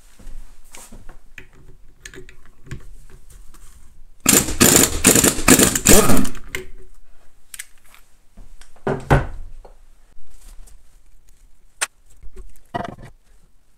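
Power impact wrench running in a loud burst of about two seconds, spinning off the nut at the centre of a pit bike engine's clutch. Scattered clinks and knocks of metal parts being handled come before and after it, with a heavier thump a few seconds after the burst.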